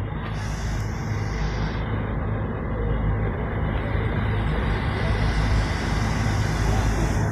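Steady low bass hum and rumble from outdoor sound-system loudspeaker stacks, held at a few fixed low pitches over a general outdoor din.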